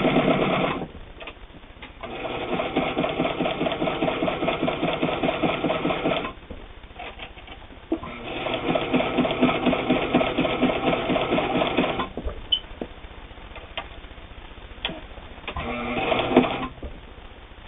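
Janome New Home Double Duty all-metal sewing machine stitching through two layers of split leather. It runs in four bursts: a short one at the start, two of about four seconds each, and a short one near the end. Each burst has a motor whine and a fast, even stitch beat, with a few clicks in the pauses between.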